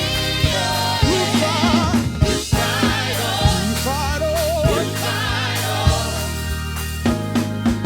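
Gospel music: voices singing with wide vibrato over a steady bass line and drum kit.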